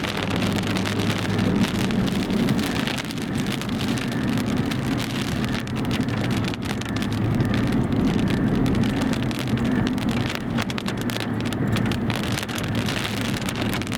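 Rain hitting a vehicle, many small ticks over a steady low rumble of engine and road noise.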